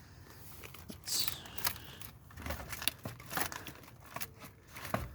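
Irregular rustling and crackling with sharp clicks, starting about a second in and scattered through to near the end.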